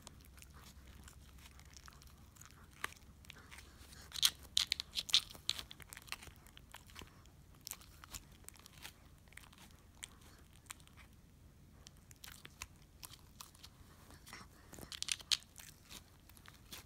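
Dog gnawing a bone, its teeth making irregular crunches and clicks, with two louder spells of crunching: one about four seconds in and one near the end.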